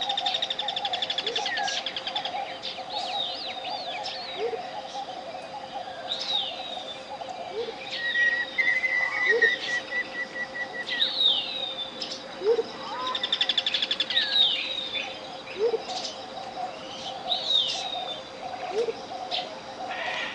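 Tropical jungle birds calling over one another: repeated down-swooping chirps, fast rattling trills and a held whistle about eight seconds in, with short low upward-sliding calls every couple of seconds. Under them runs a steady 528 Hz pure tone and a faintly pulsing hum, the track's alpha-range monaural beat layer.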